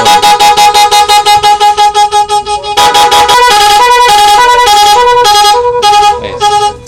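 Scorpion telolet multi-tone horn sounding loudly. It starts with a fast stutter of repeated blasts, about eight a second. About three seconds in it switches to a tune of alternating higher and lower notes, which stops just before the end.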